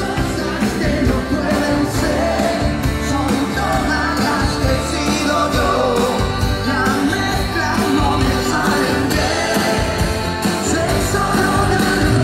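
A live rock-and-roll band playing, with upright double bass, saxophone and acoustic guitar, and voices singing over it without a break.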